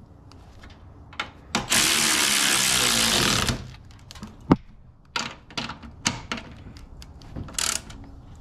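Power ratchet running the strut mount nuts down on top of a front strut tower: two short bursts, then a steady run of about two seconds that stops suddenly, followed by scattered clicks and knocks of the tool on the nuts, a sharp click and one more brief burst near the end.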